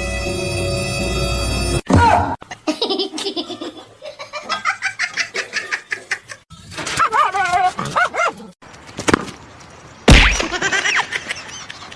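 A short stretch of music cuts off about two seconds in, followed by high-pitched laughter in quick repeated bursts, with wavering high vocal sounds and a loud sudden outburst near the end.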